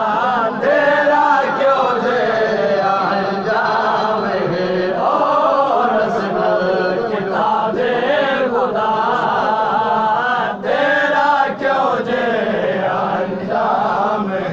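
Men chanting a Shia noha (Muharram lament) in unison, a lead voice on a handheld microphone with the crowd chanting along, continuous and loud.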